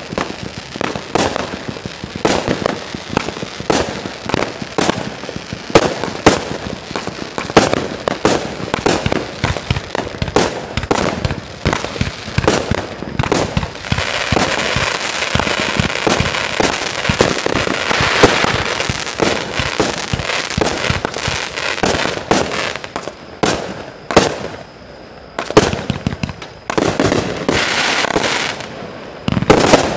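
Consumer aerial fireworks firing shot after shot, a rapid run of launches and bursts several a second. About halfway through, a stretch of dense crackling lasts several seconds, and there is a short lull near the end before the shots resume.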